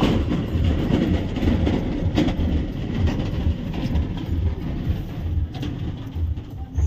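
Car tyres rumbling and clattering over the deck of a steel truss bridge, a run of irregular low thumps heard from inside the car's cabin.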